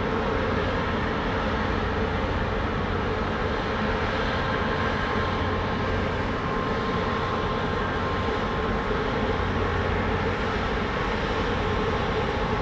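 Steady low drone of a large heavy-lift ship's engines and deck machinery as the vessel passes close by under way, a deep rumble with a faint, even hum over it.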